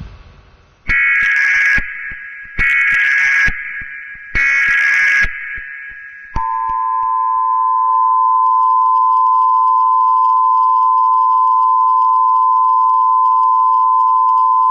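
Emergency Alert System alert tones: three short bursts of the screeching digital header data, about a second each and evenly spaced, then the steady two-tone EAS attention signal starting about six seconds in.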